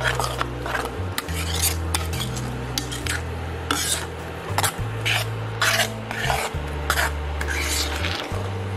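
Steel ladle stirring milky vermicelli in a steel pan, scraping and clinking against the pan's bottom and sides in uneven strokes about twice a second.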